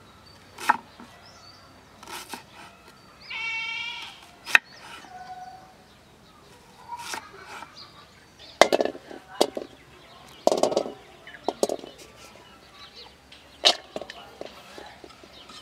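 A cleaver chopping onion on a wooden cutting board: sharp, irregular knocks of the blade striking the wood, heaviest in the middle of the stretch. A short high-pitched call sounds about three seconds in.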